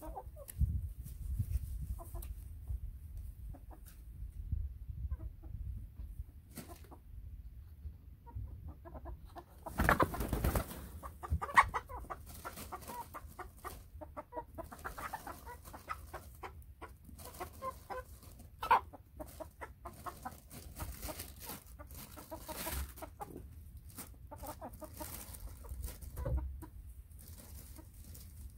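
A small flock of hens clucking and muttering in short calls, busiest in the middle, with a few sharp louder knocks, the loudest about twelve and nineteen seconds in, and a low rumble underneath.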